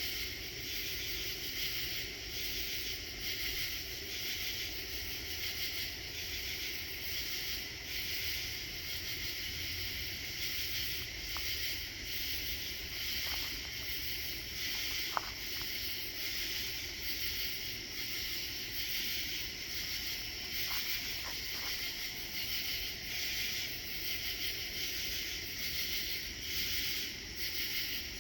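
Night chorus of insects: a dense, steady shrill buzz that pulses in an even rhythm. A few faint short tones and one brief click come through in the middle.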